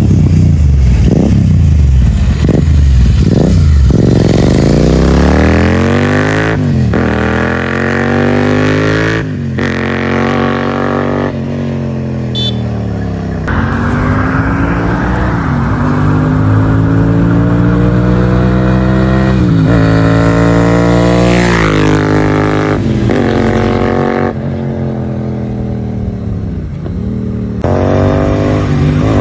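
Royal Enfield 650 parallel-twin motorcycle exhaust revving: a few quick blips at first, then several longer climbs in pitch that drop back to idle, with a few abrupt breaks between runs.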